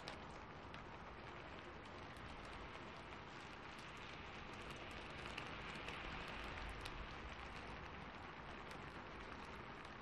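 Steady rain hiss dotted with scattered sharp ticks. A low thunder rumble swells the sound a little in the middle.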